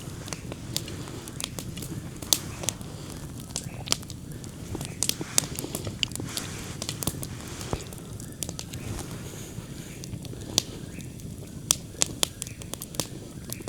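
Wood campfire crackling: irregular sharp snaps and pops over the steady low rush of the flames.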